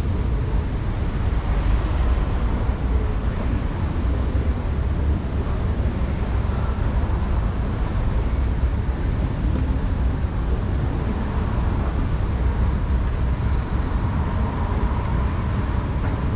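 Escalator running steadily as it carries the rider up, a constant low rumble with a faint steady whine.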